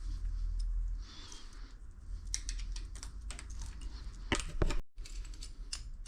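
Irregular light clicks and taps of tools and small metal bike parts being handled during mountain bike assembly, with a louder cluster of clicks just after four seconds, over a steady low hum.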